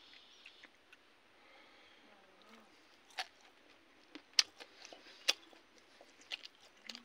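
A person chewing with the mouth open while eating fried fish and rice by hand. After a quiet start come several sharp wet smacks and clicks, five or so spread over the last four seconds.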